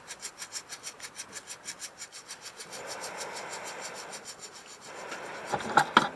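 Hand saw cutting wood in quick, even strokes, about five a second, then a softer rasping, and a few loud sharp cracks near the end.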